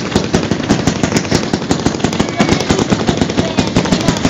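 Fireworks going off in a rapid, unbroken string of sharp bangs, many a second, like machine-gun fire.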